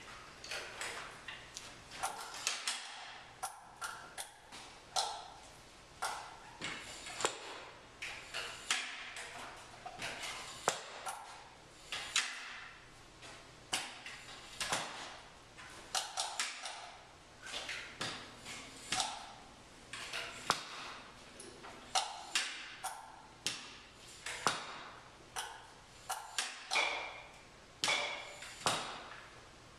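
Irregular sharp taps and clicks of small hard objects being struck and handled, about one to two a second, some with a brief ringing after them.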